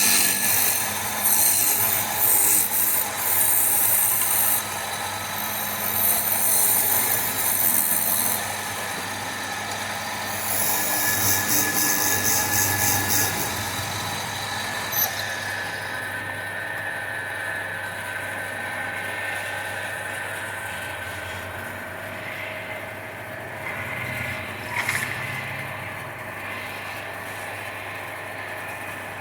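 Wood lathe motor running steadily while a turning tool cuts and scrapes the spinning wood in hissing passes for the first half, then mostly just the motor hum with a couple of short scrapes near the end.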